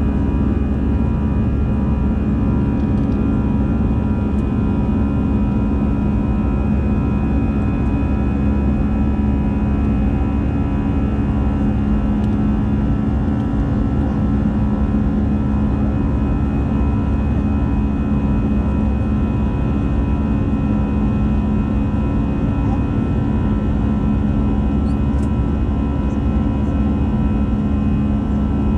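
Steady cabin noise of an Airbus A320-200 airliner in flight: an even engine drone and rush of air with a constant low hum and fine whining tones, unchanging throughout.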